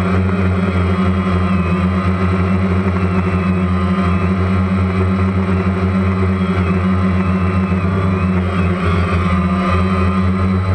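Quadcopter drone's motors and propellers buzzing steadily as heard from its onboard camera, the pitch wavering slightly.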